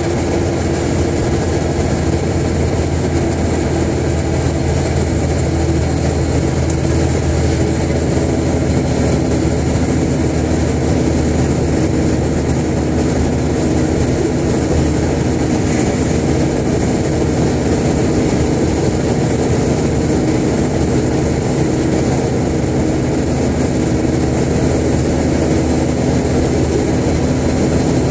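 Mechanical 575 hp single-turbo Caterpillar diesel in a 2001 Kenworth truck running steadily and loud, with a steady high turbo whistle over the engine note.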